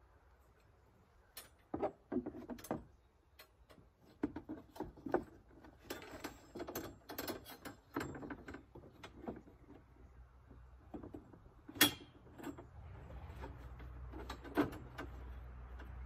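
Steel bandsaw blade being worked onto the band wheels of a Norwood HD36 sawmill: irregular metallic clinks, rattles and scrapes as the blade knocks against the wheels and frame, with the sharpest click about twelve seconds in.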